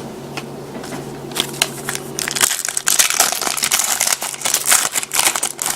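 Trading-card pack wrapper crinkling and being torn open, a dense run of crackles that starts about a second and a half in.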